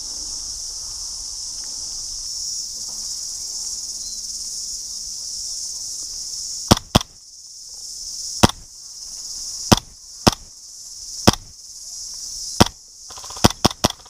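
Steady high insect chorus. About halfway in, single sharp airsoft shots start, about eleven of them, irregularly spaced and coming faster near the end.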